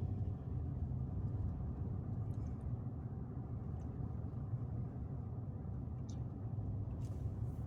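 Car driving at a steady speed, heard from inside the cabin: a constant low rumble of engine and road noise.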